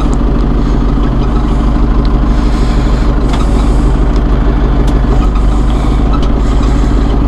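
John Deere 5101E's 4.5 L PowerTech diesel engine running steadily with a deep, even throb, heard from inside the cab while the front loader is hydraulically lowered.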